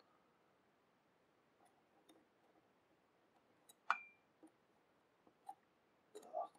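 Near silence with a few faint clicks of small metal parts being handled while cotton wick is tucked into a rebuildable atomizer deck. One sharper click about four seconds in rings briefly, like metal touching metal.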